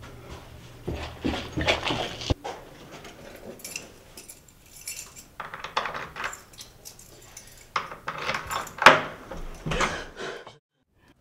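A bunch of keys jangling in three bouts, with a sharp click about two seconds in; the sound cuts off suddenly near the end.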